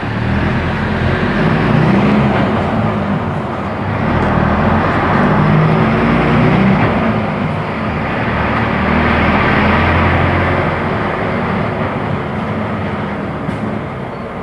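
Diesel engine of a Mercedes-Benz OF-1418 bus running under way, its low note swelling and easing about three times.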